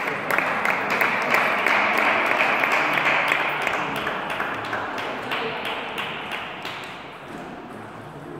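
Table tennis balls ticking and bouncing over a hiss of crowd noise in the hall. The crowd noise dies away over a few seconds about halfway through.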